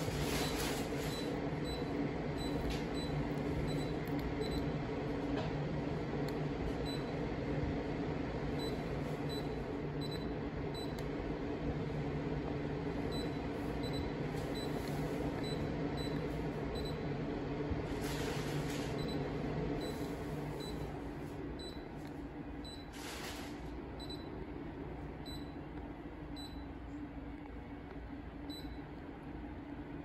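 Mitsubishi MSZ-GE5618S-W room air conditioner running with a steady hum. The hum eases off a little about twenty seconds in, and faint, evenly spaced ticks sound over it.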